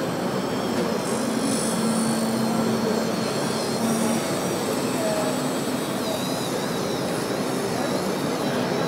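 Radio-controlled scale model John Deere 6850 forage harvester driving: a steady motor noise with a low hum in the first half and a thin high whine that wavers in pitch in the second half.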